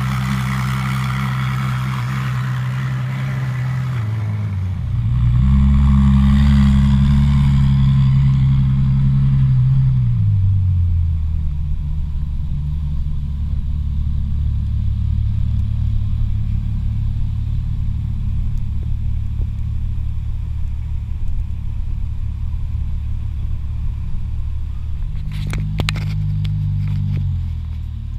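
Ferrari LaFerrari's V12 engine running at low revs while the car pulls away slowly. Its pitch steps up about five seconds in, holds for a few seconds, then settles back to steady low running, with another brief rise in revs near the end.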